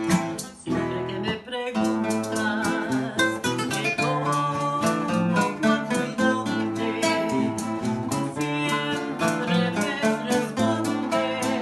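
A Hispanic folk band playing live music: plucked and strummed string instruments over a steady percussion beat, with a voice singing.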